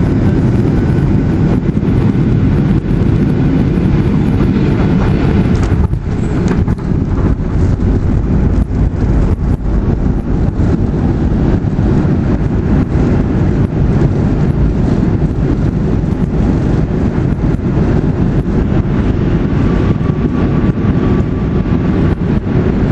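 Cabin noise of a Boeing 737-800 landing, heard inside at a window over the wing: a steady, loud roar of engines and airflow. About six seconds in the plane touches down, and the rollout follows with the spoilers up, a rumbling roar with many small rattles and jolts from the runway.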